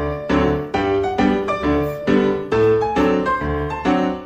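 Background piano music, notes and chords struck at a steady, even pace of about two a second.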